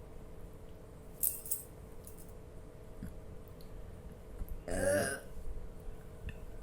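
A loud burp about five seconds in, lasting about half a second, brought up by drinking a bottle of carbonated Thums Up cola. A brief hiss comes about a second in.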